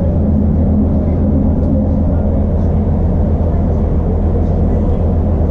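Iarnród Éireann Class 2600 diesel multiple unit at a standstill, its underfloor diesel engine idling as a steady low hum heard inside the carriage.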